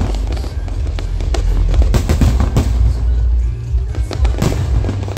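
Aerial firework shells bursting in a rapid, irregular series of sharp bangs, with music playing underneath.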